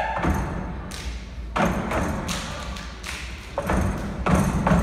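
A group of performers stomping on a stage in unison: about seven heavy, rhythmic thuds, roughly one every two-thirds of a second.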